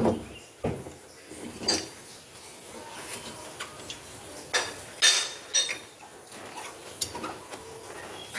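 Irregular knocks and clinks of hard objects being handled, the loudest about five seconds in.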